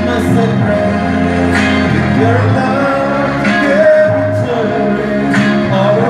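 A man singing a slow song while strumming an acoustic guitar, with chords struck about every two seconds under long held vocal notes.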